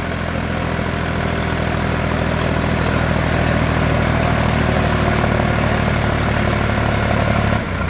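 Sonalika DI 60 RX tractor's diesel engine running hard and steady under load while its rear wheels spin in loose sand and it struggles to climb. The engine note drops just before the end.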